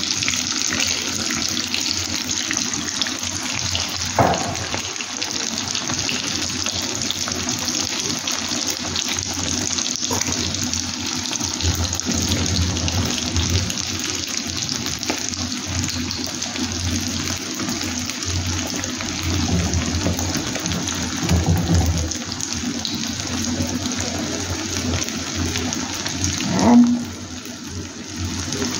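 Eggs and tomato slices frying in hot oil in a nonstick pan: a steady sizzle with fine crackling. A sharp knock about four seconds in and another near the end, after which the sizzle is quieter.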